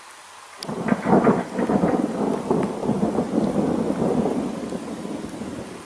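Thunder: a sudden crack about half a second in, loudest a second in, then a rolling rumble that fades over the next few seconds.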